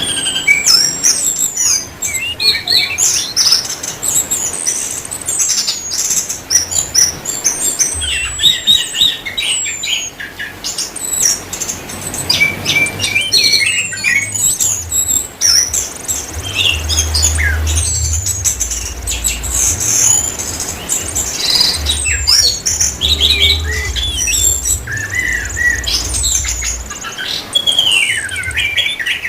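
Orange-headed thrush singing in full voice: a long, unbroken stream of varied, quick whistled phrases with rapid high sweeps and trills. A low rumble comes and goes underneath.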